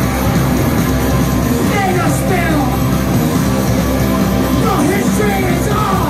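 Live punk rock band playing loud, with electric guitar, and a singer shouting into the microphone in short lines about two seconds in and again near the end.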